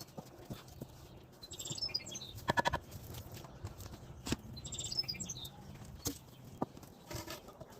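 A small bird chirping in short, high twittering phrases about every three seconds, with a few sharp knocks between them.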